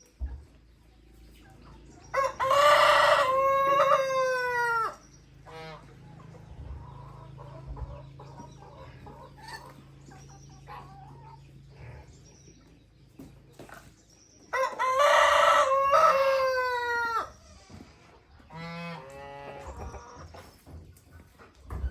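Rooster crowing twice, two long calls about twelve seconds apart that each fall away at the end, with shorter clucking calls near the end.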